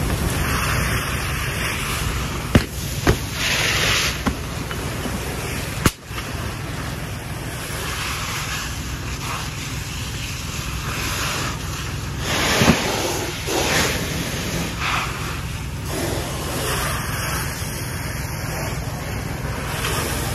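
A burning car being hit with a fire hose stream: a steady rushing hiss of water spray and steam over the fire. A few sharp pops come in the first few seconds.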